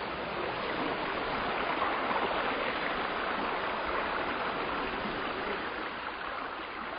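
Mountain river flowing, a steady rush of water that swells slightly in the middle.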